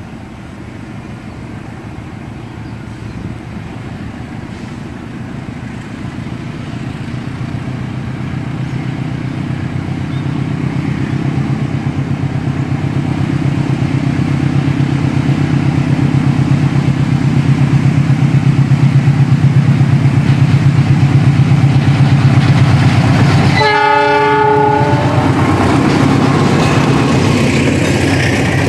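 Diesel-electric locomotive hauling a departing passenger train, its engine hum growing steadily louder as it approaches. A single horn blast of about a second and a half sounds near the end, then the stainless-steel coaches begin rolling past with wheel-on-rail noise.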